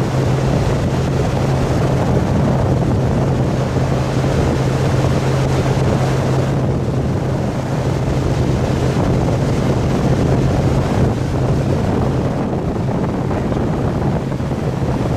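Motorboat engine running at steady speed with a constant drone, under the rush of the boat's wake and spray and wind buffeting the microphone.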